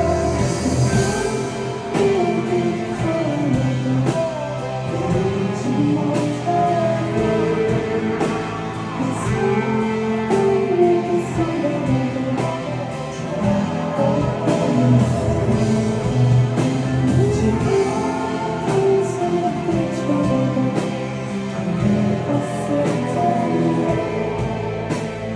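A rock band playing a song live: a sung lead vocal over guitar, bass and drums, continuous throughout.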